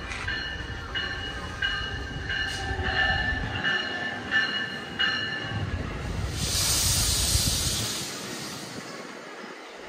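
NJ Transit train at a station platform: the locomotive bell rings about every two-thirds of a second over the train's low rumble and stops about five seconds in. About six seconds in, a burst of air hiss lasts a second or two.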